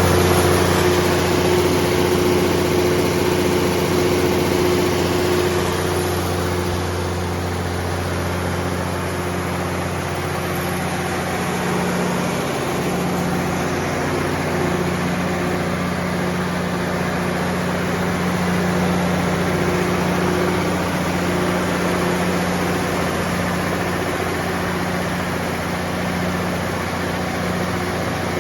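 Onan 75 kW diesel generator set with a Komatsu engine running steadily at constant speed, a steady hum that eases a little quieter over the first several seconds.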